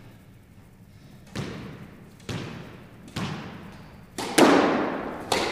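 Squash ball hits in an echoing court: a run of sharp knocks about a second apart, getting louder, the loudest near the end as the ball is served and strikes the walls.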